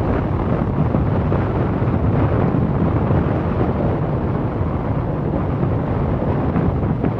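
Steady low rushing noise of wind and ride noise aboard a Palm Springs Aerial Tramway cabin moving along its cables, even throughout with no distinct tones or knocks.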